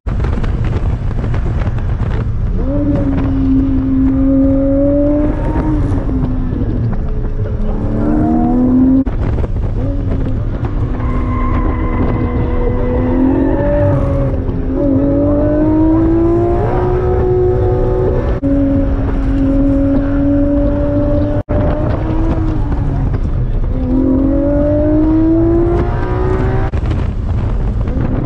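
Porsche 718 Cayman GT4's flat-six with a modified exhaust, heard from inside the cabin under hard track driving. The engine revs climb and fall repeatedly as it is driven through the gears, over a steady low tyre and road rumble.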